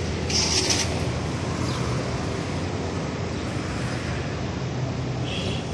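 Steady low vehicle rumble, with a short hiss about half a second in and a smaller one near the end.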